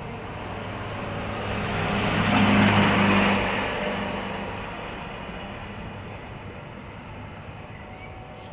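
A vehicle passing by: its engine and tyre noise swell to a peak about two and a half seconds in, then fade away slowly.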